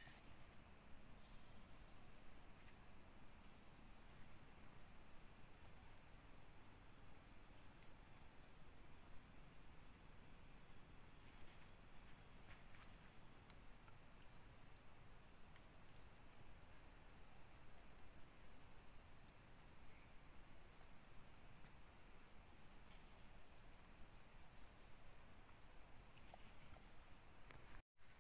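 Evening chorus of forest insects such as crickets: a steady, unbroken high-pitched trill. It cuts out for an instant near the end.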